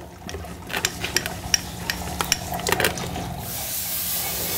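Irregular sharp metallic clicks and clinks, about a dozen over three seconds, as the metal disintegration machine's head is moved aside, over a steady low hum. A hiss comes up about three and a half seconds in and keeps growing.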